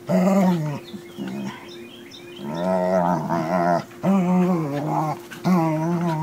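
Dogs growling in play: a series of drawn-out, pitched growls in several bouts with short pauses between them.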